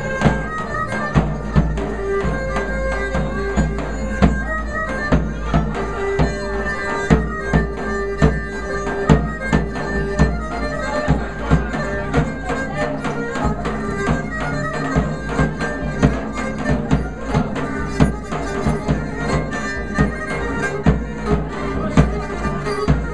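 Traditional Greek folk dance music, with a regular beat under a held melody line.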